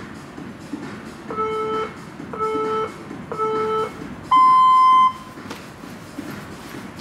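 Workout interval timer counting down to the start of a round: three short low beeps about a second apart, then one longer, higher and louder beep signalling go.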